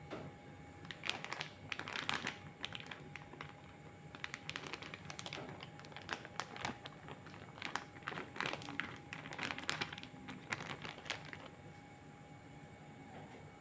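Plastic snack-style packet of chicken meatballs crinkling as the meatballs are tipped out into a saucepan of water. It comes as a run of rustles and sharp clicks and taps from about a second in, dying away near the end.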